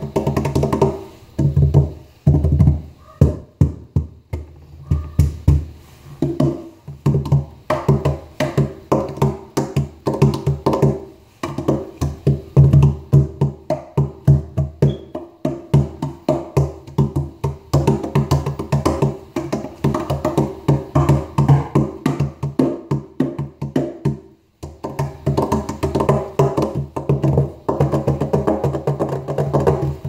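Homemade cajón box drum played with bare hands: fast rhythmic slaps and finger taps on its wooden front, each stroke ringing with the box's low body tone. The playing stops briefly about 24 seconds in, then carries on. The deep bass tones come through only weakly on the recording.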